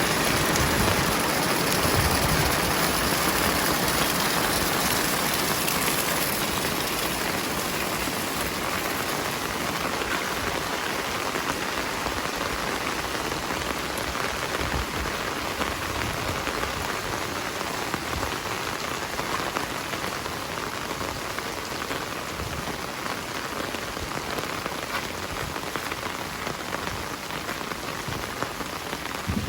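Heavy rain falling steadily as an even hiss of countless drops, growing gradually quieter over the stretch.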